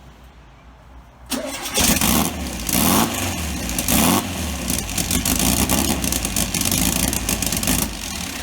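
Volkswagen Beetle engine starting about a second in, blipped loudly three times, then running steadily.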